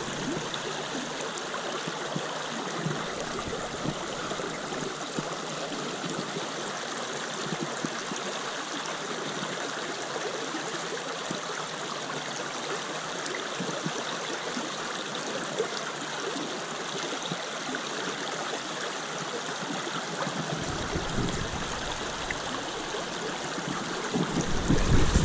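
Shallow creek water running steadily over stones and gravel. A low rumble of wind on the microphone comes in near the end.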